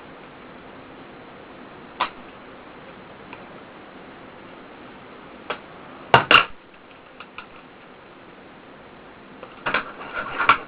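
Plastic shrink-wrap being cut and pulled off an iPod nano box: scattered sharp clicks and crinkles of handling, with a loud double click about six seconds in and a quick cluster near the end, over a steady low hiss.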